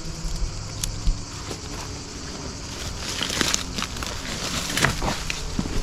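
Footsteps on rough, stony ground, with scattered small clicks and crunches.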